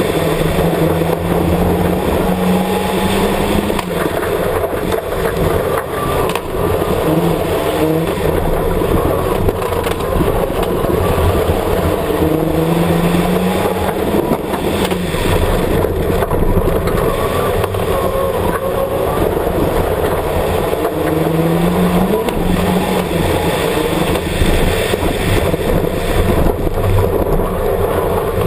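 Mitsubishi Lancer Evolution X rally car's turbocharged four-cylinder engine at full pace on a gravel stage, its note climbing and falling again several times as it works through the gears. Gravel and tyre noise run under it, heard from a camera mounted on the outside of the car.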